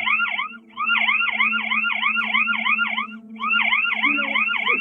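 House security alarm siren going off: a fast, repeating warble of about five whoops a second that cuts out briefly twice, over a steady low hum.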